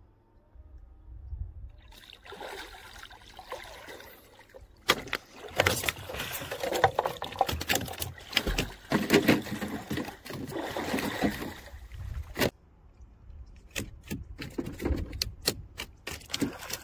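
Water splashing and sloshing around a spearfisher wading and swimming, with many sharp splashes and knocks. It is quiet for the first two seconds and busiest in the middle.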